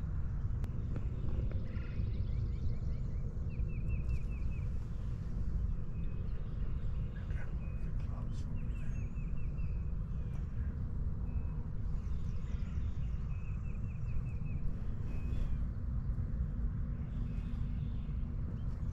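Outdoor field ambience: a steady low rumble, with a bird's short series of rapid chirping notes repeated every few seconds.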